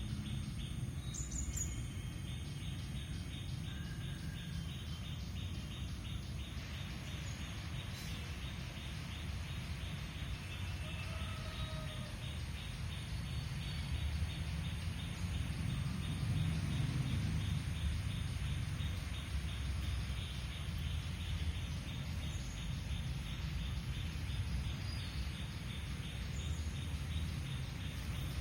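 Nature ambience: insects chirring in a fast, steady pulse, with a few brief bird calls now and then over a steady low rumble.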